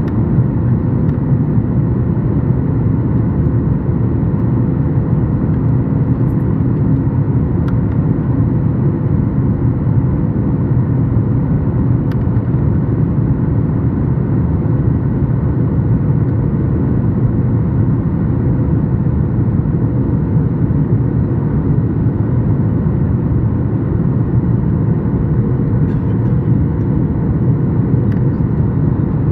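Steady cabin noise of a Boeing 737-8 MAX in flight, the drone of its CFM LEAP-1B engines and the rush of air heard from inside the cabin, with a faint steady hum riding on it.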